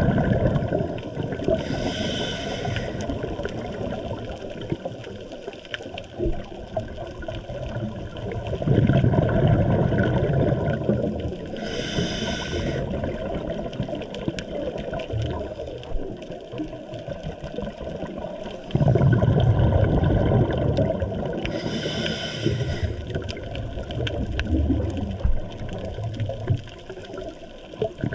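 Diver breathing through a scuba regulator underwater. There is a short hissing inhalation about every ten seconds, three in all, and a steady gurgle of exhaled bubbles that swells about nine and nineteen seconds in.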